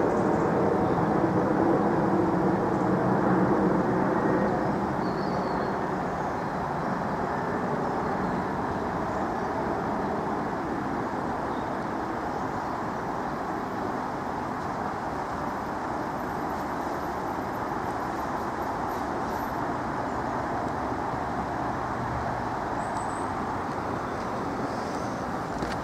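Steady roar of road traffic, louder at first and easing to a constant level over the first several seconds.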